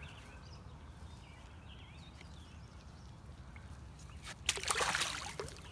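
Faint birds chirping, then about four and a half seconds in a short burst of splashing as a channel catfish is let go into the river and swims off.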